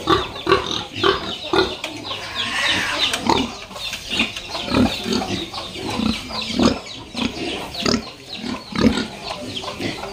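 Large White fattener pigs grunting, a quick run of short grunts from several animals.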